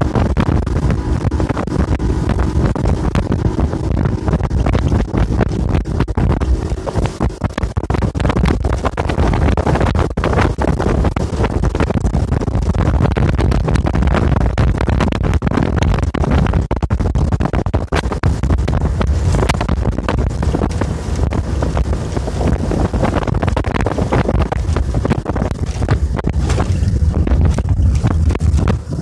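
Wind buffeting the microphone over a 1989 Yamaha 40 hp outboard running at speed, pushing an aluminum bass boat across choppy water.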